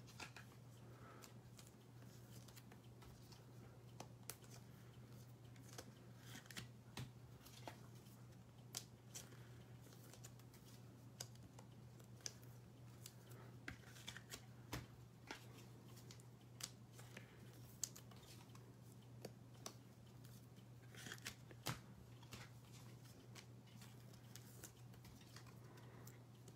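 Near silence: a faint steady low hum with scattered faint clicks.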